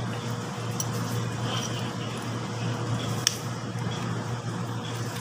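Light metal clicks of tools and brake parts as the centre bolt of a motorcycle drum brake is taken out, one sharper click about three seconds in, over a steady low hum.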